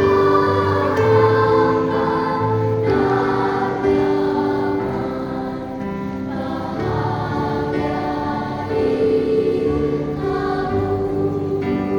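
Sunday school children's choir singing a hymn in harmony, holding each chord for a second or two before moving to the next.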